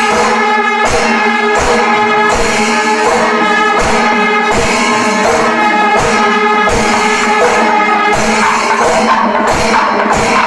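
Kerala panchavadyam temple ensemble playing. Timila and maddalam drums strike a steady beat, ilathalam cymbals clash continuously, and kombu horns sound long held notes. The horns drop away about eight seconds in, leaving the drums and cymbals.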